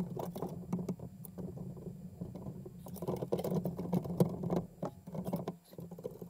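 Handling noise from fitting a radiator and fans into the top of a PC case: irregular small clicks, taps and scrapes of plastic and metal, over a steady low hum.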